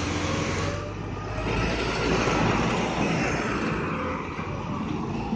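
Heavy forklift's engine running steadily: a low, even rumble with a faint whine above it.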